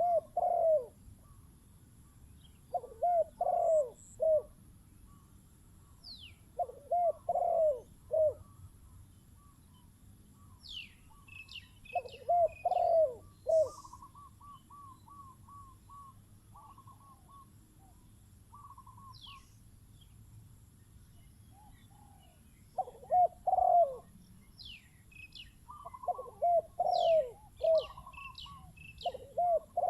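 Spotted doves cooing: short phrases of several rolling coos, repeated every few seconds with long gaps between. Small birds chirp high and briefly in between.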